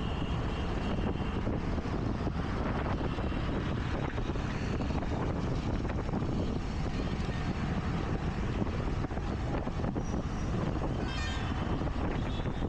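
Wind buffeting the camera microphone on a moving scooter, over the steady noise of the scooter and surrounding road traffic. A brief high-pitched tone sounds near the end.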